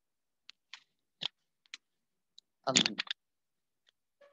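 A few short, sharp clicks spaced about half a second apart over an otherwise dead-silent line, then a brief vocal sound about three seconds in.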